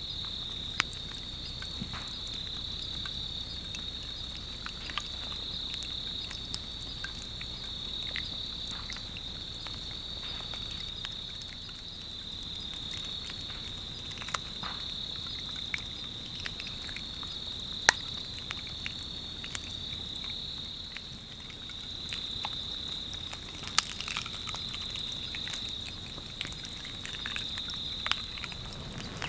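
Steady high-pitched trill of night insects such as crickets, pulsing gently, with scattered sharp crackles and pops from the lava flow burning into dry ferns.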